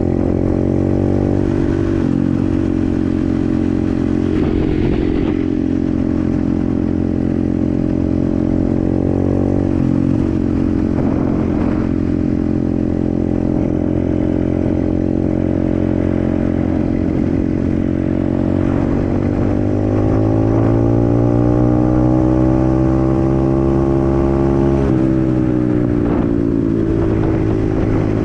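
125cc dirt bike engine running under way, its pitch climbing and then dropping back at gear changes several times, with a long steady rise about two-thirds of the way through.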